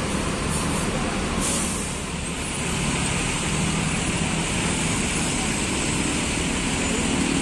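Diesel bus engines idling in a bus terminal, a steady low rumble with general traffic noise. A short hiss of released air, like an air brake, comes about a second and a half in.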